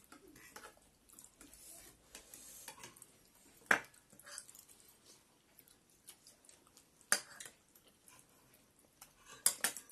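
Eating noodle soup: soft slurping and mouth sounds, with sharp clinks of spoons and forks against the bowls. There is a loud clink about four seconds in, another about seven seconds in, and two or three close together near the end.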